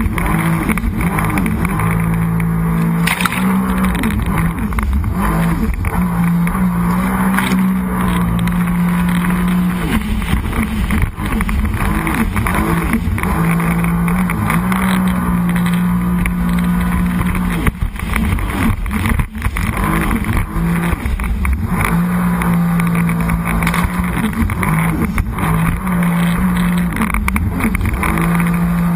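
Sea-Doo personal watercraft engine running at speed, its pitch stepping up and down with the throttle and easing off for a few seconds now and then, over the steady rush of water and wind.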